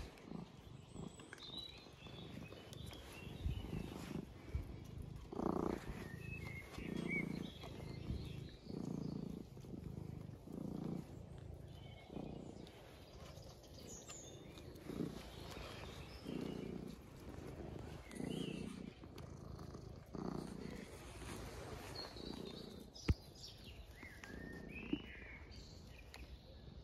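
Domestic cat purring close to the microphone, in even pulses about every one and a half to two seconds, one with each breath. Birds chirp faintly in the background.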